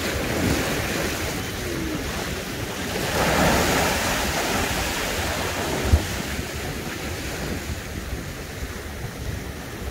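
Sea waves washing and foaming over a rocky shoreline, with wind buffeting the microphone. The wash swells louder about three seconds in, and there is a short thump about six seconds in.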